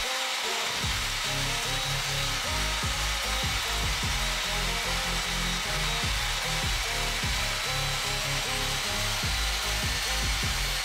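Lotus LTST254RPF 2000W table saw running steadily while its blade cuts through a mahogany board, heard together with background music.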